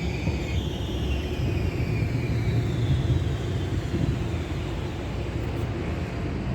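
A tram running close by with a steady deep rumble, and an electric whine that falls in pitch and fades over the first three seconds or so.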